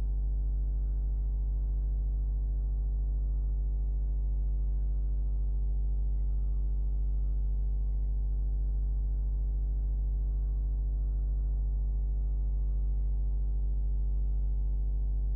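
Steady electrical mains hum in the microphone signal: a low, even buzz with a stack of overtones and no change throughout.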